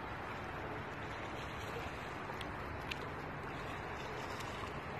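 Steady, even rushing outdoor background noise, with a few faint ticks.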